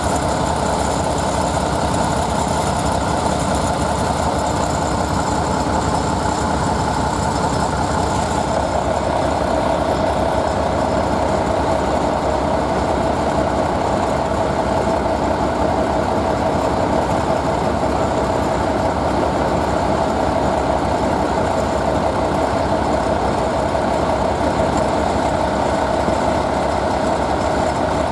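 Diesel locomotive engine running steadily and loudly, with a hum that grows stronger about eight seconds in.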